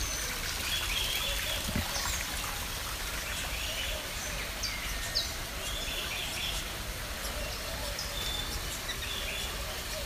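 Mixed birds in a tropical walk-in aviary chirping and calling: many short, high calls scattered throughout over a steady background hiss.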